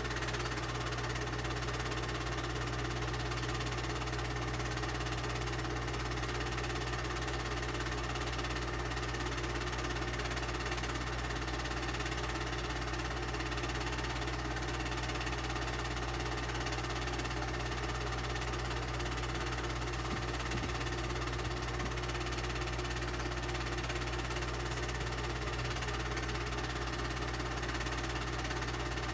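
Movie projector running with a steady mechanical whir and low hum.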